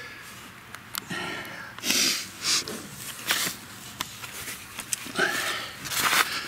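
A man breathing hard and noisily with effort while squeezing out of a tight crawlspace opening, a string of short hissing breaths, with a few sharp knocks and scuffs.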